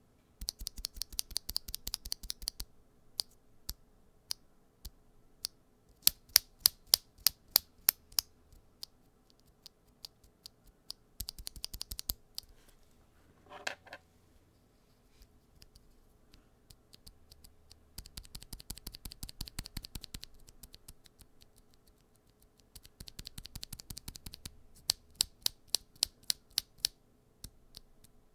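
Keys being pressed rapidly on a Skylong GK96 mechanical keyboard with PBT keycaps, fitted with Gateron Yellow and Kailh Box Silent Pink switches. The key presses come in about six bursts of quick clicks, each a couple of seconds long, with pauses between them; some bursts are much louder than others.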